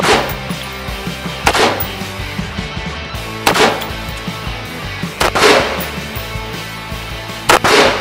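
AR-style rifle firing about five single shots one to two seconds apart, each with an echoing tail, over background music.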